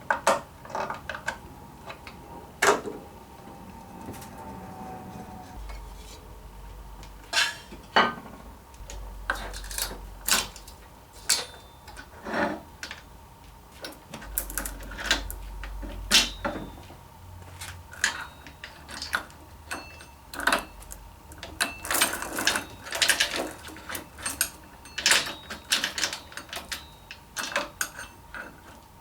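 Irregular metallic clicks and clinks of hand tools on metal, as pliers are used to take apart a large chainsaw (an 090) to remove its bar and get at the clutch. The clinks come thicker in the second half.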